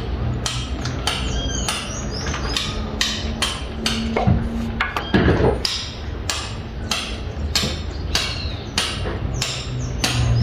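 Hammer blows in a steady rhythm, about two strikes a second, over a steady low hum.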